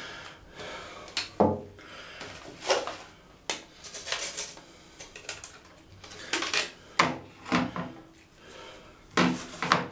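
Plastic casing and small parts of a Philips D6280 cassette recorder being scrubbed with a toothbrush in a wet basin: brushing and rubbing, with irregular knocks and clatters as the plastic pieces are handled and set down.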